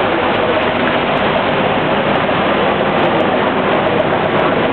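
Steady loud rushing noise of a boat under way: its engine running and water churning past the hull.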